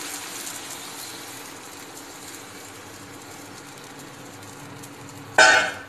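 Steady sizzling hiss from the hot pan of sautéed vegetables and sauces, slowly dying down as the thin maida and cornflour batter is poured in. A short loud sound comes near the end.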